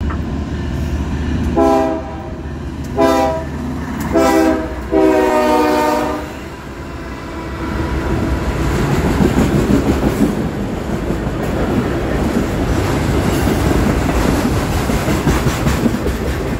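Norfolk Southern freight locomotive's air horn sounding four chorded blasts, the last one the longest. After that comes the steady rumble and wheel clatter of autorack freight cars rolling past.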